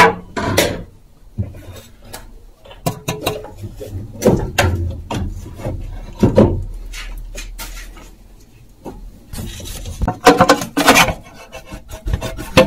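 Irregular clicks, knocks and scraping of hands and tools working on metal parts under a car, loudest and busiest near the end.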